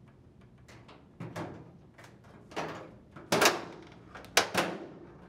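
Dryer front panel knocking and rattling against the dryer cabinet as it is set onto the cabinet's tabs: a string of short knocks, the loudest about three and a half and four and a half seconds in.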